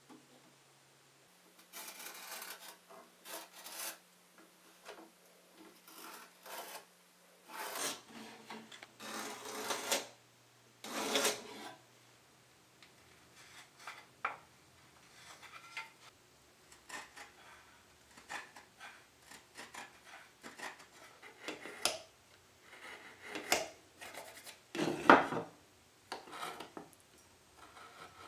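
Marking knife scraping along a square to score layout lines across tulip poplar boards, in runs of short strokes, with clicks and knocks as the square and boards are handled on the wooden workbench. The loudest sound is a sharp knock near the end.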